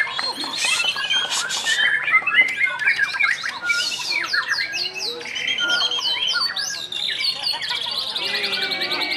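White-rumped shama (murai batu) singing a fast, varied song of mimicked phrases (isian): quick whistled notes, runs of sharp downward-sweeping notes, and a rapid trill near the end.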